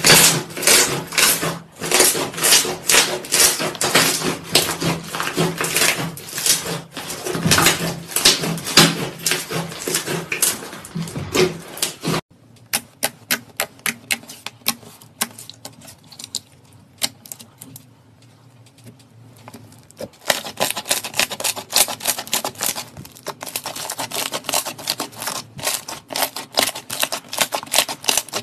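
Hands kneading, pressing and squeezing slime, making rapid crackling clicks and little wet pops. About twelve seconds in it cuts to a quieter stretch with sparse clicks, and the clicking grows dense again from about twenty seconds.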